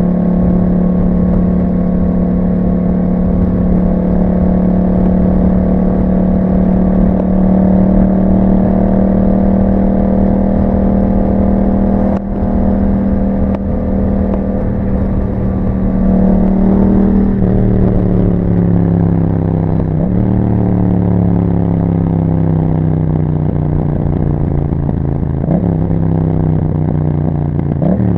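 Yamaha MT-07's parallel-twin engine through an Akrapovic exhaust, running at steady revs under way. About two-thirds of the way through, the engine note drops in several steps, each with a brief rev blip, as the bike slows through the gears.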